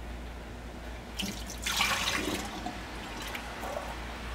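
Hot strained fruit liquid poured through a small funnel, trickling into a container for about a second, followed by a few light clicks.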